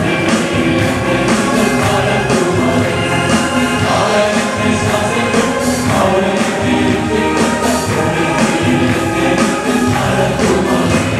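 Live gospel worship music: singing over a band, with a steady percussion beat.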